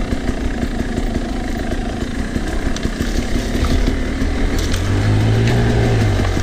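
Sherco 300 SE Factory two-stroke enduro motorcycle engine running at low trail revs, picking up a little past halfway and then easing off.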